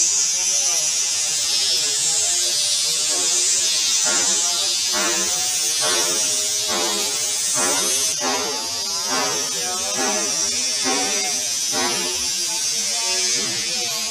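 Compressed-air spray gun hissing steadily as it sprays clear coat onto scooter body panels, with a wavering motor buzz underneath.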